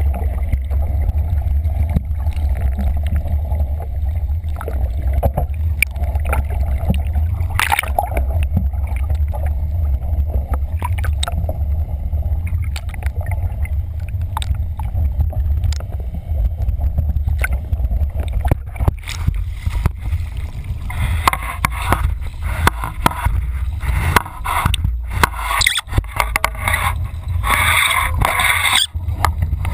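Muffled low rumble and gurgling of water around a camera held under the surface by a capsized RS800 skiff. About twenty seconds in the sound opens out into choppy splashing and spray as the camera comes out of the water with the boat coming upright.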